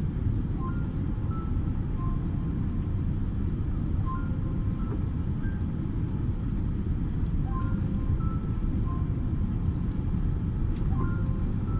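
Steady low rumble of airliner cabin noise inside a Boeing 787-10, with faint short musical notes over it.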